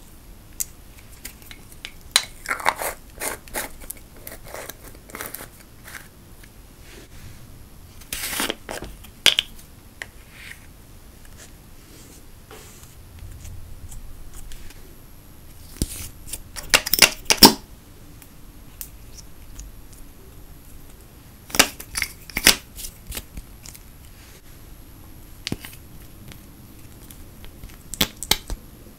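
Makeup and cosmetic containers handled over a clear tray: a plastic spatula scraping out glitter and pressed eyeshadow, with scattered sharp clicks, taps and short scrapes in bunches a few seconds apart. The loudest is a quick run of clicks about two-thirds of the way through.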